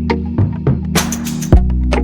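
Background music with a steady beat: a held bass line under sharp drum hits and a cymbal crash about a second in.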